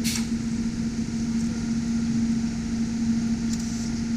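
TIG welding arc on mild steel, struck with a short sharp crackle at the start, then burning steadily with a soft hiss over a steady low hum.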